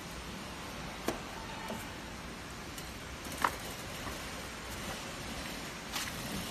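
Steady low background noise of a workshop, broken by a few short sharp knocks or clicks. The loudest knock comes about three and a half seconds in.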